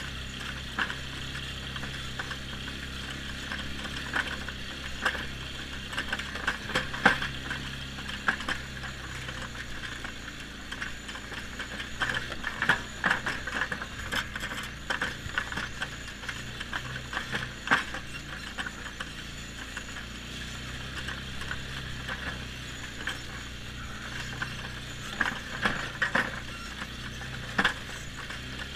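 2007 Polaris X2 ATV engine running steadily while riding over snow, its pitch shifting about ten seconds in, with frequent rattles, clicks and squeaks from the machine's body and parts over the bumps.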